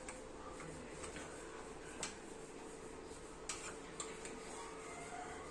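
A steel spoon clicking and scraping lightly against metal idli-stand plates as steamed idlis are scooped out: a handful of scattered small clinks over a faint steady hum.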